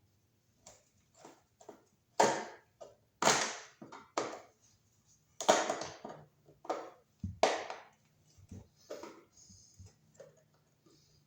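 Hands working on a Wiremold surface-mount electrical box and its outlet: a string of irregular knocks, clicks and clatters, the loudest about two, three, five and a half and seven and a half seconds in.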